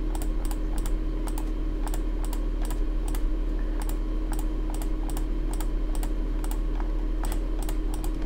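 Quick, irregular clicking of a computer mouse and keyboard, about two to four clicks a second, over a steady low electrical hum.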